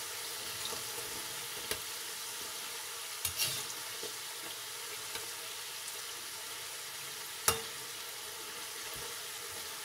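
Namak para dough pieces deep-frying in hot oil in a wok, a steady sizzle. A few sharp metal clicks come from the slotted spoon stirring them against the pan, the loudest about seven and a half seconds in.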